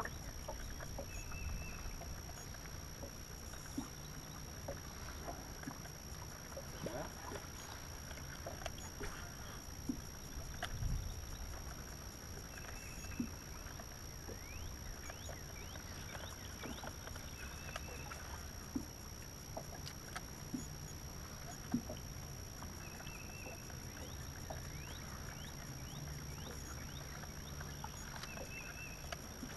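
Ambient sound on the deck of a bass boat drifting on a lake: a steady low rumble of wind and water against the hull, with scattered small clicks and knocks. A short high chirp repeats about every five seconds, and a faint thin steady whine sits high above it all.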